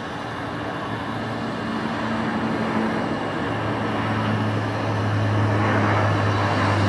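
Bombardier Dash 8 Q400's turboprop engines and six-bladed propellers at take-off power during the take-off roll: a steady low propeller hum over a rushing noise, growing gradually louder.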